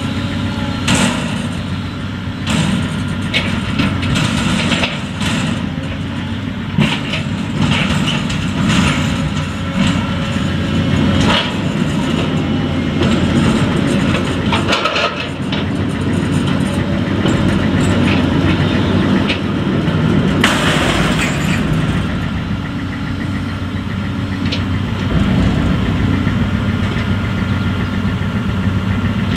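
Tracked excavator's diesel engine running steadily while it handles a steel narrow-gauge peat wagon, with metal clanks and knocks from the wagon every few seconds and a longer clatter about two-thirds of the way through.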